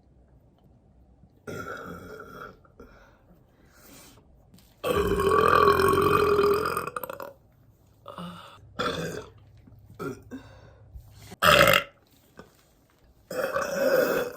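Women burping: a string of separate burps, the longest and loudest running about two seconds from about five seconds in, with shorter ones after it and a brief sharp one later on.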